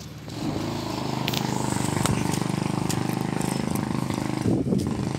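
A small engine running steadily, coming in about half a second in.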